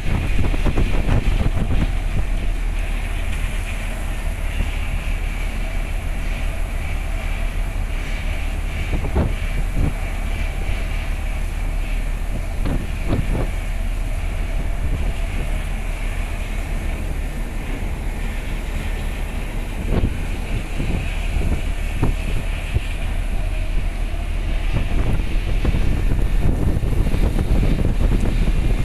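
Wind buffeting the microphone on the open deck of a container ship under way, over the steady noise of the ship itself, with a few brief knocks.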